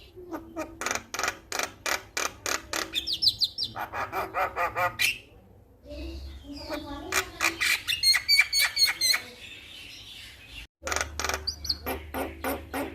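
Male Javan myna singing: rapid runs of short clicking and chattering notes mixed with pitched whistled and buzzy phrases. There is a short lull about halfway through and a momentary break just before the last couple of seconds.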